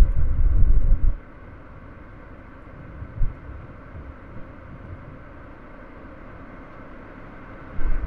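Car driving: steady road and engine noise, broken by low rumbling thumps through the first second, a short one about three seconds in, and another near the end.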